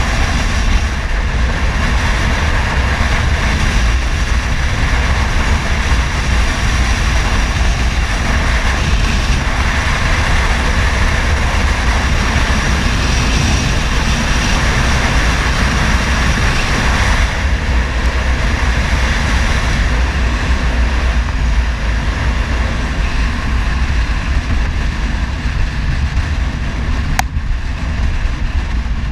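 Wind buffeting the microphone of a camera on a fast-moving motor scooter: a loud, steady rush with a heavy low rumble. A single sharp click comes near the end.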